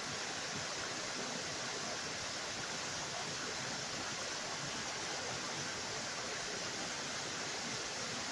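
Small waterfall pouring down a stone face into a shallow rocky stream: a steady rush and splash of falling water.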